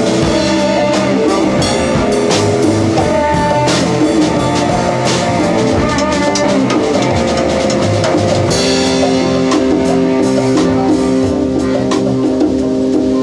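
Live band playing: saxophone, acoustic guitar and drum kit, with the drums keeping a steady beat. A long held note comes in about two-thirds of the way through.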